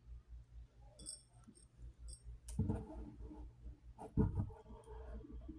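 Small metal clicks and clinks as a jump ring is worked onto a chain by hand, a few short ticks about a second and two seconds in. Two brief vocal murmurs are louder, partway through and near the end.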